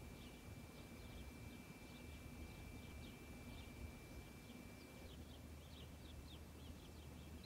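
Faint bird chirps, short high calls several times a second, over a low steady background hum. A thin, steady high tone runs alongside and stops about five seconds in.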